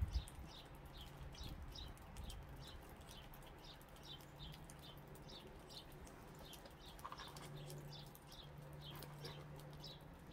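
A small bird chirping faintly over and over, about two short chirps a second, over a steady low hum.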